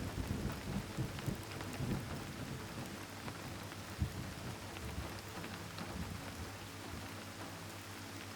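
Steady rain with a low, uneven rumble of thunder that is strongest in the first few seconds and dies away toward the end, with one sharper crack about four seconds in.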